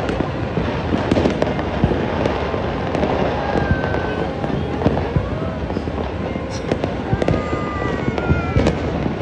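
Dense, unbroken barrage of fireworks and firecrackers, many going off at once in a constant crackle and pop of bangs, with a few short whistles.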